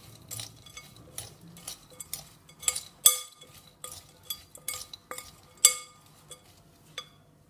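A metal spoon stirring chopped pears, nuts and chocolate in a glass mixing bowl, with irregular clinks of the spoon against the glass that ring briefly. The stirring stops near the end.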